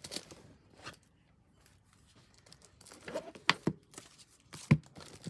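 Crinkling and rustling as manga books are handled and taken out of a bag, with a few light knocks about three seconds in and again near the end.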